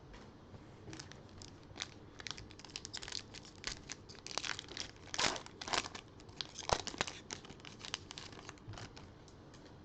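A trading-card pack's wrapper being torn open and crinkled, a run of irregular crackles and rustles that is loudest a little past the middle.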